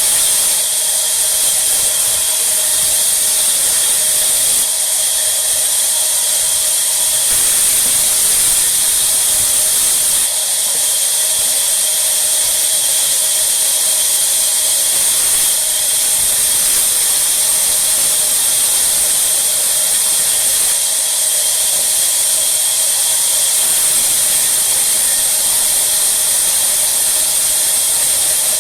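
Sawmill saw cutting wood: a loud, steady high-pitched hiss with a constant whine beneath it, shifting slightly every few seconds.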